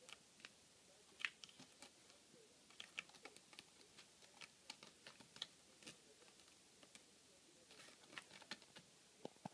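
Faint, irregular clicking and ticking of a Bengal kitten's claws catching on the sisal rope of a scratching post as it clings and scrambles at it in play, with the sharpest click about a second in.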